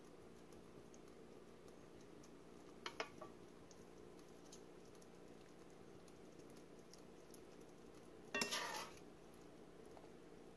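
Metal serving spoon clinking against a dinner plate: a quick double clink about three seconds in, and a louder clink with a short metallic ring near the end, over a faint steady hum.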